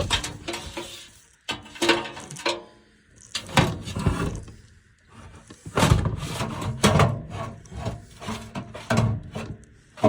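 A gas furnace's blower assembly being slid along its rails into the cabinet, scraping and knocking in about five short bouts.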